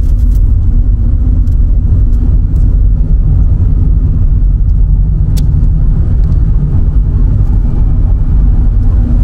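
Steady low rumble of a car driving along a road, its engine and tyre noise heard from inside the cabin.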